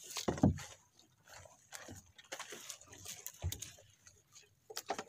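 Fishing net being hauled by hand into a wooden outrigger boat: scattered knocks, rustles and slaps against the hull, with a loud thump about half a second in and another about three and a half seconds in.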